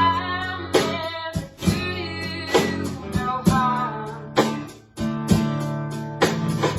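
Acoustic guitar strumming a song, about one strum a second, under a wavering melody line with no words sung.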